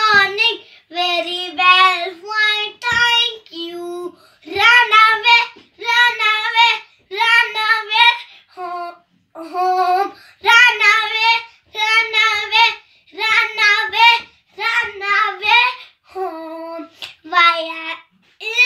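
A young child singing a rhyme unaccompanied, in short high-pitched phrases with brief pauses between them.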